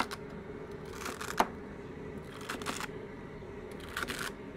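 Chef's knife chopping through a bundle of celery stalks on a plastic cutting board, about four chops roughly a second apart.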